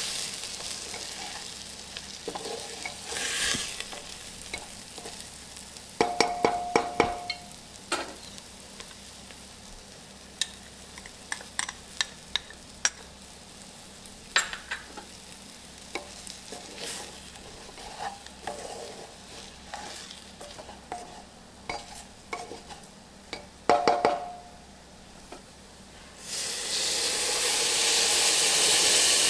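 A metal spoon stirring and scraping through food frying in a pot, with a light sizzle and scattered clicks. Twice there is a quick run of sharp metal taps that ring. Near the end a loud steady hiss starts suddenly.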